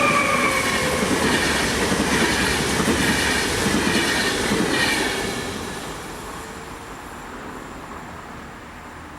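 Vivalto double-deck regional train passing at speed, wheels running on the rails with high-pitched tones that slide down in pitch. Loud for about five seconds, then fading as it moves away.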